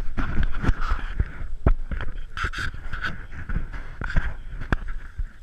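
Wind buffeting the microphone: a heavy, uneven low rumble with irregular sharp knocks.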